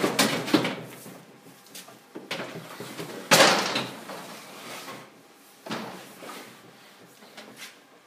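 A household fridge-freezer being turned around by hand on a metal table: a series of scrapes and bumps, the loudest about three seconds in.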